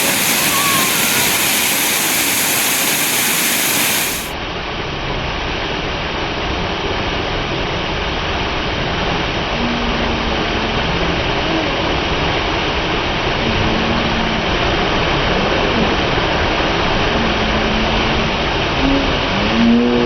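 Waterfall rushing steadily. About four seconds in the sound cuts to a duller, steady rushing noise with a low rumble and a few faint short tones.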